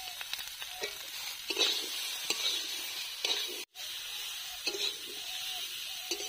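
Metal spatula scraping and turning cauliflower and potato pieces in a metal karahi, over a steady sizzle of frying in oil, as the vegetables are sautéed with spices and salt. A few distinct scrapes stand out, and the sound breaks off for an instant a little past the middle.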